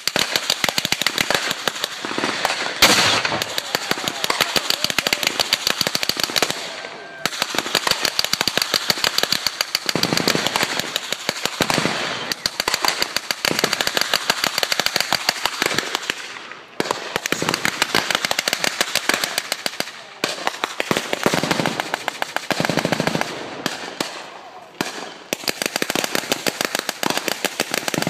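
Staged battle gunfire effects: long strings of rapid pops, many a second, broken by short pauses a few times.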